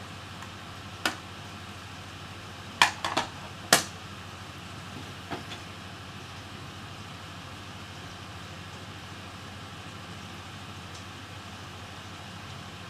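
A few sharp clicks and clinks of small hard objects being handled: one about a second in, a quick run of three near the three-second mark and another just after, then two faint ones, over a steady low hum.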